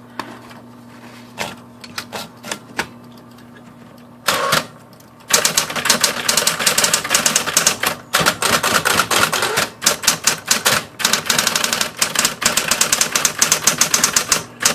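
Smith Corona Coronet Automatic 12 electric portable typewriter being test-typed: its motor hums with a few scattered key clicks, a short loud burst comes about four seconds in, then fast continuous typing, many keystrokes a second, from about five seconds on.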